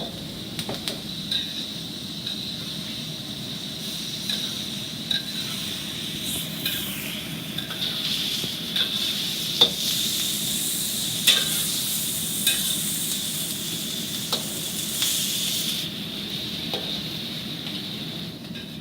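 Scallops and vegetables sizzling in a hot wok as they are stir-fried, a steady hiss with short clicks and scrapes of the stirring utensil against the wok every second or so.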